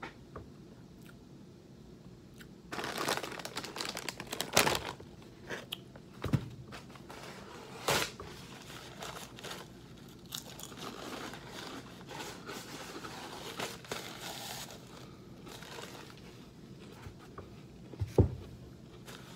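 Fried pork skins crunching as they are bitten and chewed, mixed with the crinkling of a plastic snack bag, in irregular bursts. A single thump near the end.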